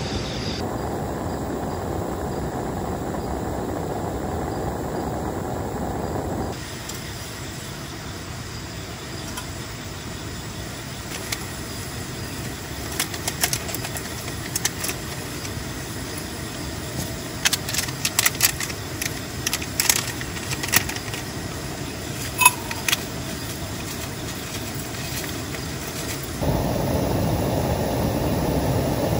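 Steady rushing of heavy rain around the tent, with a camping gas stove's burner running under an aluminium kettle; the noise is louder and deeper near the start and again near the end. Through the middle, a scatter of small sharp clicks and crinkles from hands handling food packets.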